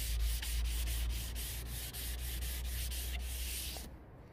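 Sandpaper rubbed by hand over the primed steel body panel of a VW T25 van, flatting the primer with quick back-and-forth strokes at about four a second. The strokes stop shortly before the end.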